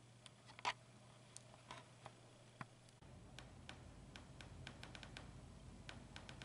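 Faint room tone with scattered small clicks, one sharper than the rest about a second in. About halfway a low hum comes in, with a quick, uneven run of light ticks.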